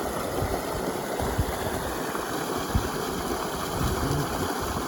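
Stream water pouring steadily from a culvert outflow and rushing over rocks, with an uneven low rumble underneath.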